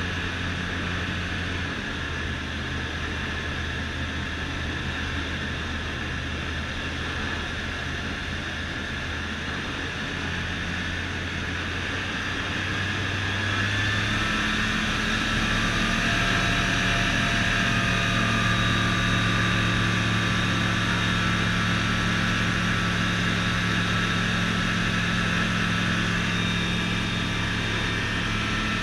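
Rotax 912 iS Sport four-cylinder engine and propeller of an F6 Hydran amphibian droning steadily, heard from inside the cabin. About halfway through the engine note rises and gets louder, then holds steady.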